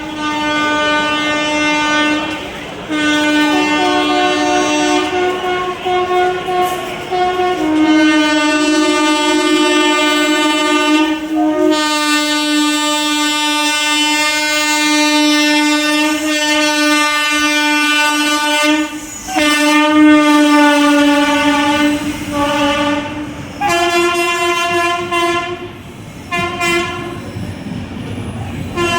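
WAP-7 electric locomotive's horn blaring in long, almost unbroken blasts of several seconds each, then a few shorter blasts near the end: repeated warning honks to clear people off the tracks ahead of the train.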